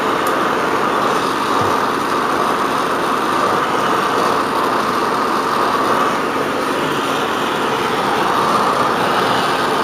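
Hand brazing torch flame burning steadily, a loud, even rushing noise, as it heats a 3/8-inch copper refrigerant line joint for brazing.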